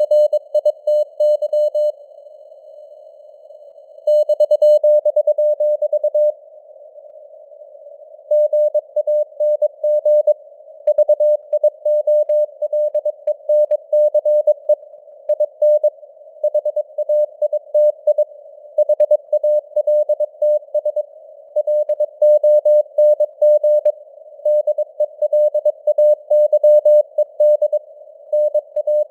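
Morse code (CW) at 22 words per minute: a single beeping tone keyed on and off in dots and dashes over a band of simulated radio hiss, as heard through a receiver's narrow CW filter. The signal strength rises and falls slightly (simulated fading, QSB), and there are two pauses of about two seconds near the start where only the hiss remains.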